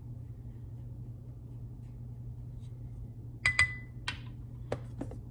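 A tablespoon clinking against a dish while almond flour is scooped and measured: two bright ringing clinks about three and a half seconds in, another just after, then a couple of lighter taps, over a low steady hum.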